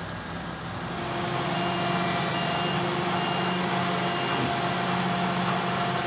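Claas Lexion 770TT TerraTrac combine harvester running, a steady machine drone with several steady tones that grows louder about a second in as the combine comes closer. A short high beep repeats four times in the middle.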